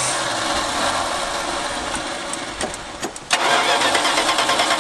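1977 Dodge D150's starter cranking the engine over without it catching. The cranking stops for a moment about three seconds in, then starts again with an even chug-chug rhythm.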